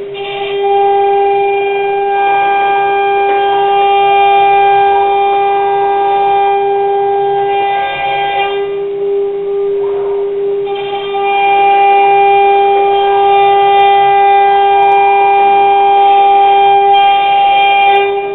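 CNC router spindle running at speed and milling, a steady high-pitched whine with a ring of overtones; the overtones drop away for a moment about nine seconds in, then return.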